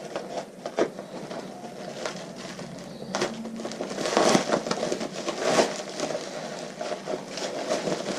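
Packing paper rustling and crinkling as parts are handled and unwrapped, with irregular light clicks and knocks, busiest about halfway through.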